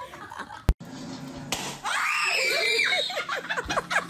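A person screaming: one loud, high scream lasting about a second and a half, after a sharp click near the start. It is followed by a fast run of short vocal sounds.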